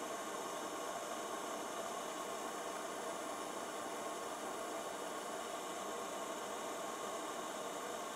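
Steady hiss with a faint hum and no distinct events.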